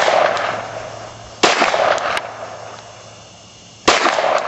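9mm Glock 17L pistol firing: two shots about two and a half seconds apart, each ringing out with a long echoing tail. The first comes in over the fading echo of a shot fired just before.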